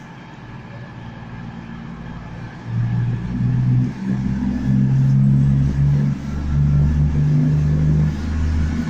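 CrossCountry Class 220 Voyager diesel multiple unit arriving at the platform. The steady drone of its underfloor diesel engines swells sharply about three seconds in and stays loud as it draws nearer.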